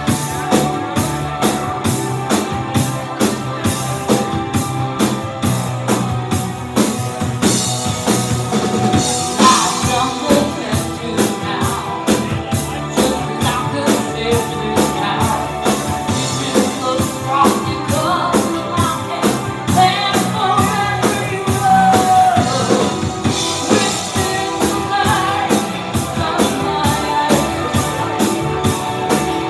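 Live rock band playing: a drum kit keeping a steady beat under electric guitar and bass guitar, with a woman singing lead into a microphone from about ten seconds in.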